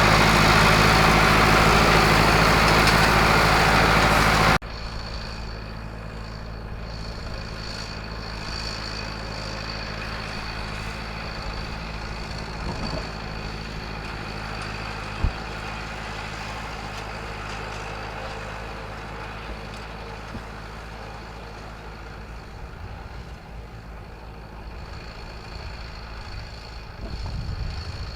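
Tractor engine running steadily while it works the field tedding hay. It is very loud and close at first, then cuts off suddenly about four and a half seconds in to a fainter, steady run with a thin high whine. There is a single sharp click midway.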